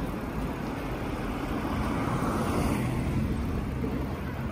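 Street traffic: a car drives past, its noise swelling about two seconds in and then fading, over a steady low rumble of road and wind noise.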